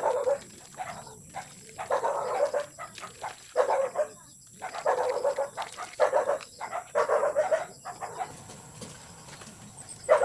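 An animal calling over and over: short, loud calls come about once every second or so, with quiet gaps between them.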